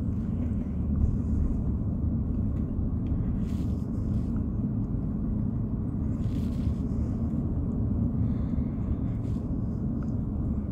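Steady low rumble of a vehicle's engine and tyres rolling slowly along a paved road, heard from inside the cab.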